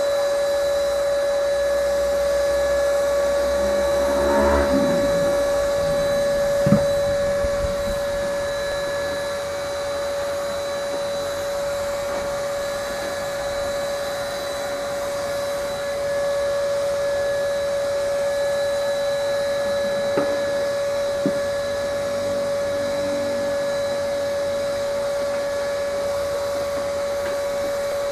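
Paint spray gun running steadily with a constant hum while spraying silver paint onto a motorcycle frame. A few short sharp knocks come through, about seven seconds in and twice around twenty seconds in.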